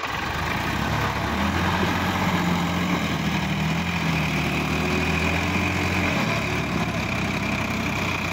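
Sonalika DI-50 RX tractor's diesel engine working under load as the tractor climbs out of a flooded paddy onto a steep bank, with a steady drone that strengthens about half a second in and eases slightly about six seconds in. A steady high whine joins about three seconds in.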